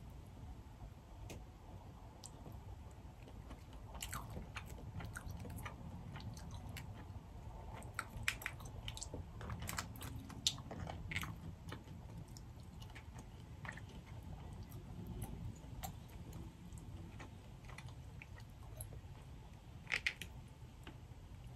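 Boiled crawfish shells snapping and crackling as they are cracked and peeled apart by hand, in scattered small clicks, busiest in the middle with one sharper snap near the end, along with quiet chewing.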